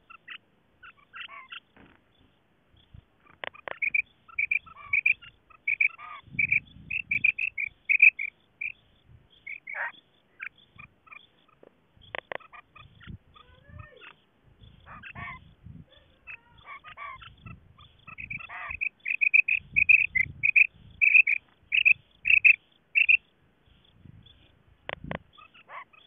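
Female common quail calling: two long runs of quick, high, repeated notes with scattered single calls between them, and a few low thuds mixed in.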